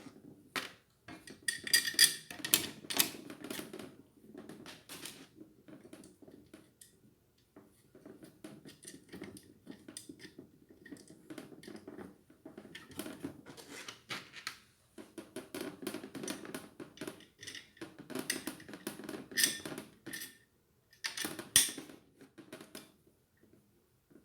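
Irregular clicking and light metallic clinking of small parts being handled during ceiling fan assembly, with louder flurries of clatter about two seconds in and again near the end.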